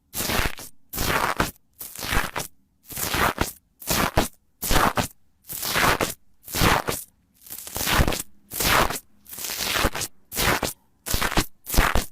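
Slime being pressed and squeezed by hand in quick repeated strokes, each press making a crackly, crunchy squelch, more than one a second, with abrupt silences between.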